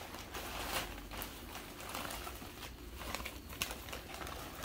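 Newspaper packing paper rustling and crinkling as it is pulled apart by hand to unwrap a stone bookend, in irregular crackles.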